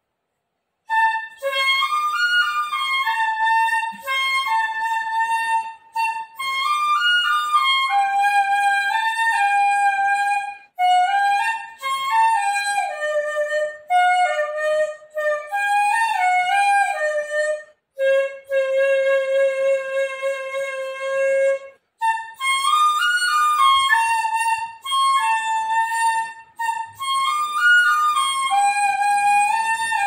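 Old black bamboo dizi (Chinese transverse flute) in the key of F playing a slow melody solo, in phrases with short breath breaks. It starts about a second in, and a long held low note comes a little past the middle.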